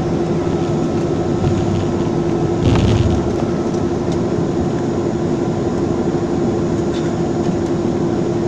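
Cabin noise inside a Boeing 737-300 taxiing: the steady drone of its CFM56-3 turbofan engines with a constant hum. A brief thump comes about three seconds in.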